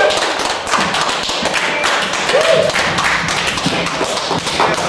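Irregular taps and thumps, with a short call from a voice about halfway through, as the music of a live set stops.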